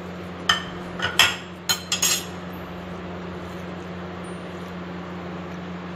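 About six sharp clinks and knocks of kitchenware, glass containers set against glass and the counter, in the first two seconds or so, followed by only a steady low background hum.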